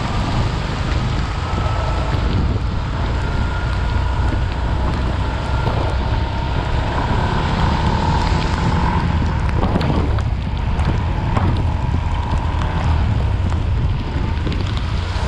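Wind buffeting the microphone and tyres hissing through standing water while riding along a road in heavy rain, with a faint steady whine underneath.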